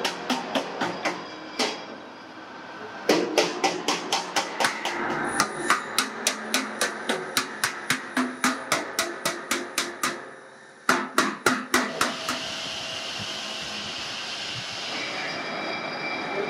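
Hand hammer striking a sheet-steel drill-press belt guard cover in quick, even blows, about three a second, in three runs with short breaks. The hammering stops about three quarters of the way through, leaving a steady background noise.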